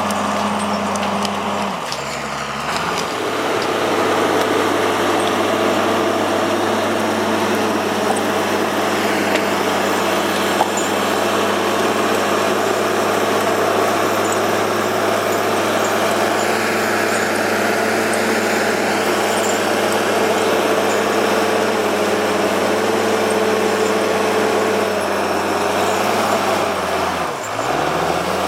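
Timberjack skidder's diesel engine running hard and steady. Its speed dips about two seconds in, picks back up and holds, then dips and recovers again near the end.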